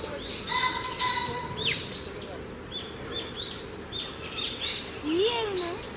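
Several small birds chirping, with many short, overlapping high calls and quick falling notes that repeat throughout, and a lower wavering call about five seconds in.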